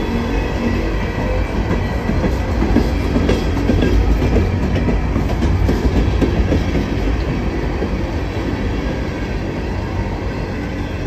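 Freight train cars rolling past at close range, steel wheels rumbling and clacking over the rail joints. It grows loudest a few seconds in.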